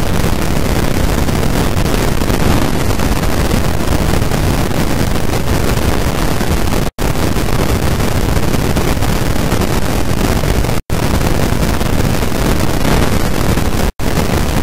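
Loud, steady rushing noise with no pitch or rhythm, cut by brief moments of total silence about 7, 11 and 14 seconds in.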